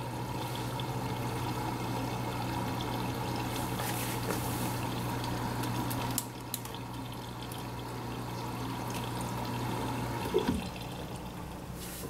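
Midea HealthGuard front-load washer taking in water through its inlet valve during the steam stage: a steady run of water with a low hum, which stops about ten seconds in. The small amount of water goes onto the heating element to be turned into steam.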